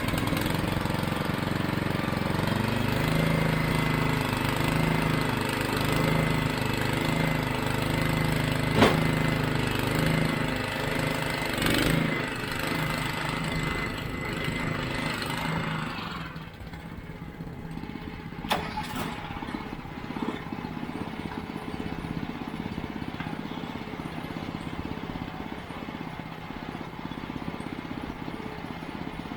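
Portable band sawmill running with its gas engine under steady power as the band blade cuts down the cant, with a thin high whine over the engine. About halfway through the sound drops and the whine fades, and a few sharp knocks come through.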